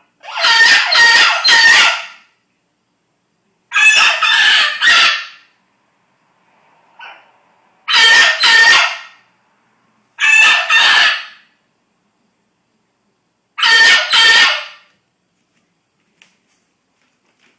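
Amazon parrots screaming: five loud bouts of harsh, rasping calls, each bout two or three calls in quick succession, a few seconds apart.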